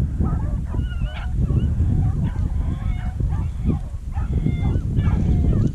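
A pack of rabbit beagles baying in overlapping, bending cries while running a rabbit on the trail, over a constant low rumble.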